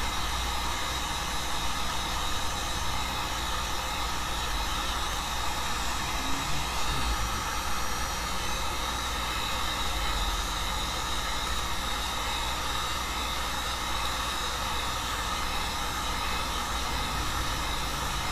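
Electric heat gun blowing steadily, heating the corner of an iPad Air's glass to soften the screen adhesive.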